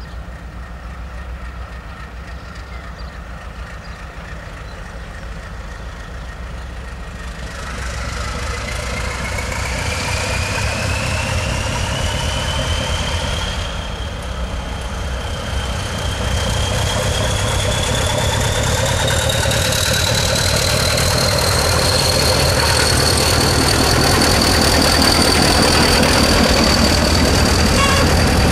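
Diesel locomotive pulling a freight train, drawing near and passing close under power. Its engine grows steadily louder, and a high whine rises in pitch from about a quarter of the way in.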